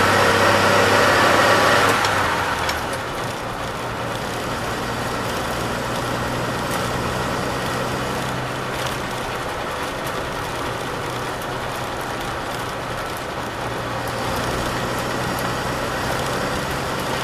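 1949 Bedford OB coach's six-cylinder petrol engine running on the move, heard from the cab. It is loud with a strong pitched drone at first, then drops in level about two seconds in and settles to a steadier, lower engine note under a hiss of tyres on the wet road.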